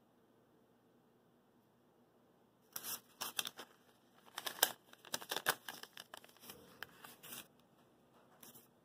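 Parchment paper crinkling and rustling as it is handled, in a quick run of short crackles starting about three seconds in and dying away near the end.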